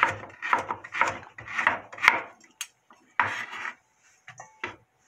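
Chef's knife slicing a carrot on a wooden cutting board, about two sharp chops a second, stopping about two seconds in; a brief scrape follows a second later.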